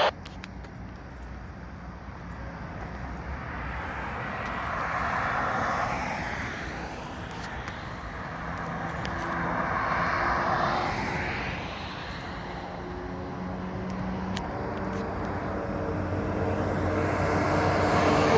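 Vehicle noise that swells and fades twice, then builds steadily louder toward the end, with a steady underlying rumble.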